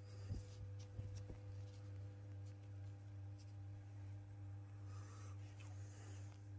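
Faint rustling and rubbing of a football shirt's fabric as it is handled close to the microphone, with a few light clicks in the first second or so. A steady low hum runs underneath.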